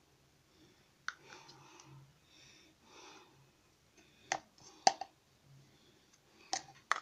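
Metal spoon clicking and knocking against a clear plastic pot while scooping thick ointment, with faint handling noise between. There are a few sharp knocks, the loudest about five seconds in and two more near the end.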